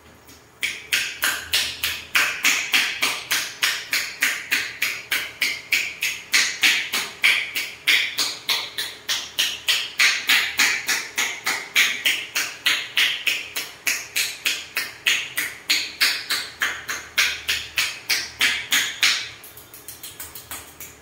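Rapid, even percussive strikes of a masseuse's hands tapping on a towel-wrapped head during a head massage, about five a second. Near the end the strikes turn much softer.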